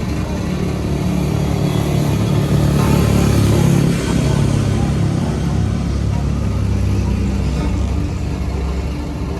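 Heavy diesel engine of road-construction machinery running steadily, getting louder from about two and a half to four seconds in and easing slightly after.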